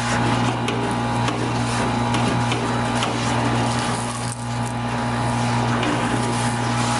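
Industrial vacuum running steadily with a low hum and a rush of air through a 2-inch hose as it sucks Portland cement out of a steel drum. Scattered sharp ticks come as the nozzle works over the drum's bottom.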